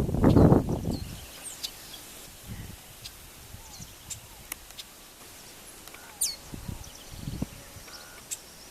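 Chestnut-capped blackbirds calling: scattered short, high chips and a few quick downward-sliding notes. A loud low rumble fills the first second, then dies away.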